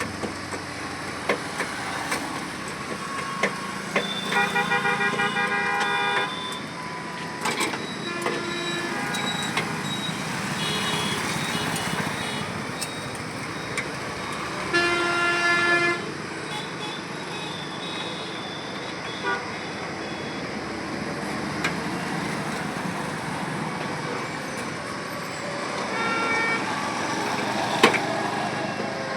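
Vehicle horns honking several times over steady street traffic noise, one honk lasting about two seconds, with scattered sharp metal clicks and knocks.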